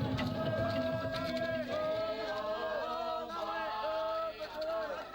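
Several voices chanting in sustained, bending notes, while the percussion behind them drops away about two seconds in.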